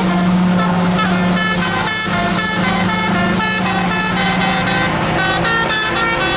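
Bus 'telolet' musical air horn of the Basuri type playing a quick melody of short notes, over a steady low hum.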